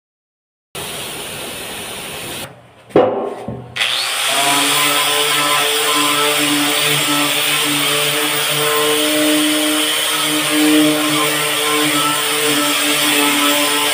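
Corded angle grinder with a wire brush running against a dump truck's painted steel bed, stripping the old paint: a steady motor whine with a scraping hiss. It starts about four seconds in; before it there is a couple of seconds of pressure-washer spray hiss.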